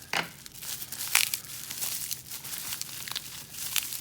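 Packing wrapping crinkling and rustling as it is handled and pulled off a lock, with a few sharper crackles.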